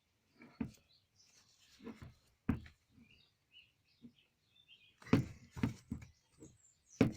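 Parts of a metal garden sprinkler being handled and fitted back together: a string of knocks and clinks, the sharpest about half a second, two and a half, five and seven seconds in, with faint high chirps between them.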